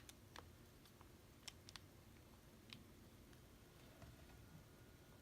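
Near silence with faint, scattered clicks of a 3x3 Rubik's Cube being turned, a few irregular clicks a second at first, thinning out later.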